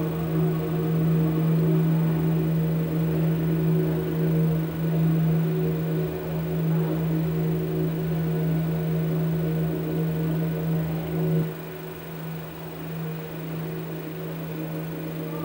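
Electronic drone: a strong, steady low hum with several held higher tones layered over it. The low hum drops in level about eleven and a half seconds in, and the sound grows quieter.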